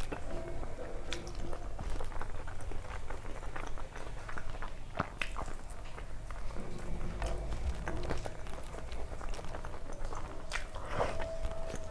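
A person chewing a mouthful of food close to the microphone, with many small irregular clicks from the mouth and the food.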